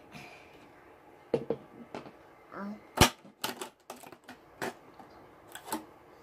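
A series of sharp, irregular clicks and knocks from small plastic craft items being handled on a tabletop, the loudest about three seconds in.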